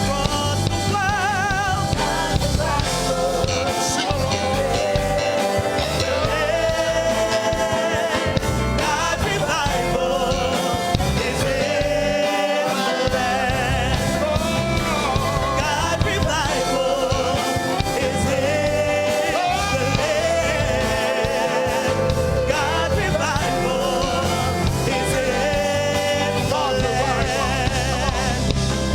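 Music with singing, in a gospel style: voices with vibrato over a full band.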